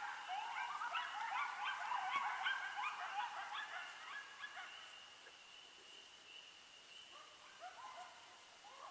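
A flock of geese honking, many calls overlapping at first, thinning out after about four seconds to scattered honks, with a few more near the end.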